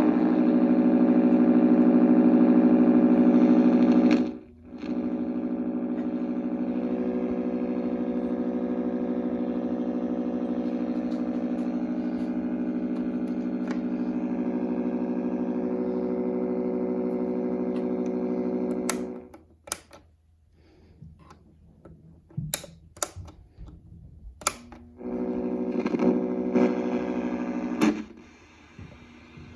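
Vintage Craig clock radio giving a steady electric buzz. It cuts out briefly about four seconds in and comes back quieter, stops at about twenty seconds, and after a few sharp clicks sounds again for about three seconds near the end.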